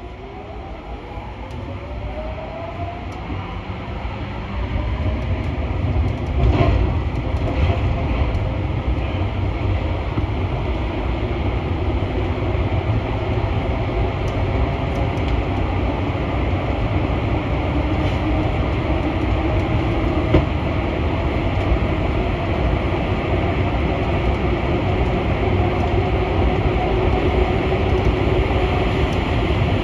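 Paris Métro MP14 rubber-tyred electric train heard from on board, pulling away. Its motor whine rises in pitch and the sound grows louder over the first few seconds, then it runs steadily at speed.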